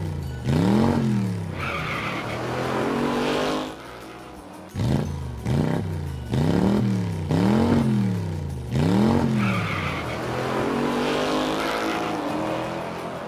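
Race-car sound effects: an engine revving up and down about once a second, then a longer rising rev with a screech, the sequence repeating.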